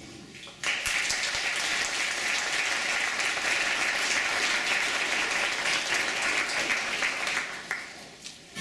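Audience applauding: clapping that starts suddenly about half a second in, holds steady, then dies away near the end.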